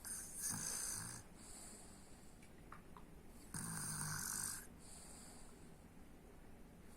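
A sleeper snoring: two snores about three and a half seconds apart, each lasting about a second.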